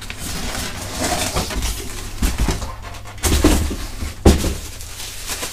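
Cardboard box, foam packing and plastic wrapping rustling and scraping as a boxed monitor is lifted out and the box moved, with two dull thumps about three and four seconds in.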